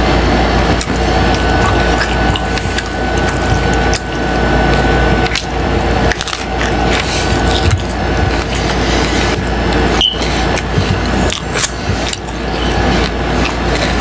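Close-miked chewing of a crunchy taco shell and crispy fried tripas: wet mouth sounds broken by frequent sharp crunches, over a steady low hum.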